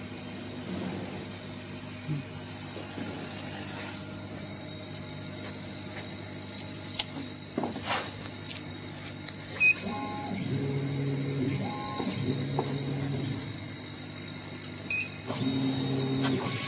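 CO2 laser cutting and engraving machine working a wooden board: a steady hum, with the head's drive motors whining in stretches of about a second in the second half. Two short high beeps and a few clicks.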